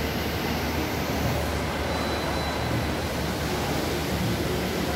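Steady rumble and hiss of a large hall's background noise, with a low mechanical hum running under it.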